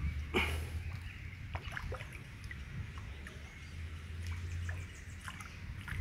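Small, scattered splashes and plops at the water's surface from a school of river fish feeding on floating bread crumbs, a slightly louder splash about half a second in, over a steady low rumble.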